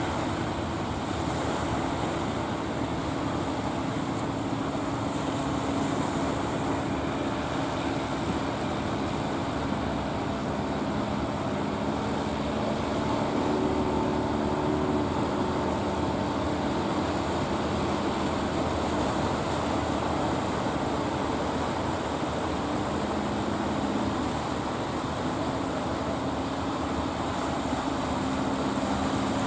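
Fishing boat's engine running steadily as it motors through the surf, a low drone over the rush of breaking waves and bow wash. The engine's pitch shifts slightly about halfway through.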